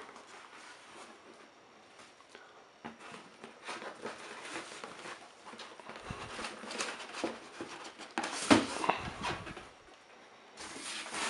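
Cardboard boxes and crumpled kraft packing paper being handled: irregular rustling and scraping as a boxed device is lifted out of a shipping carton, with a louder thump about eight and a half seconds in.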